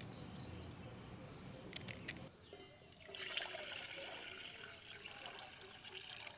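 Water poured in a steady stream into a stainless-steel saucepan, splashing as the pan fills, starting about three seconds in. Before it, a steady high insect trill.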